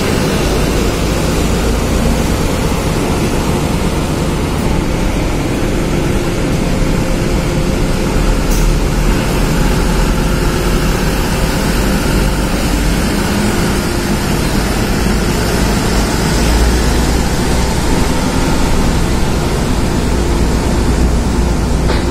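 Steady low engine rumble inside a roll-on/roll-off ferry's steel car deck, as a loaded light cargo truck drives slowly across the deck during vehicle loading.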